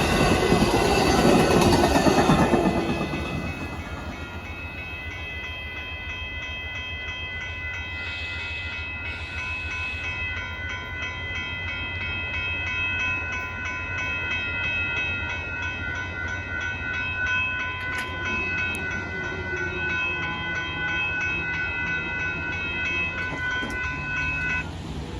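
Amtrak Texas Eagle passenger train rolling past, its noise dying away after about three seconds. A steady ringing of several pitched tones, the grade crossing's warning bell, then goes on and stops near the end.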